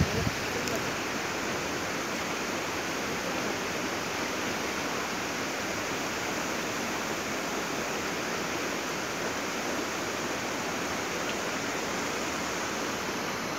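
Steady rush of a river running over rocks and rapids.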